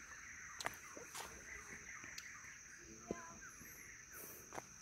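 Faint outdoor ambience: a steady high-pitched drone throughout, scattered short chirps, and a few sharp clicks, one about half a second in, one about a second in and one about two seconds in.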